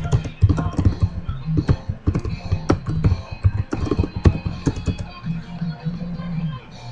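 Typing on a computer keyboard: a quick, irregular run of key clicks that thins out and stops about five seconds in. Background music with held low notes plays underneath.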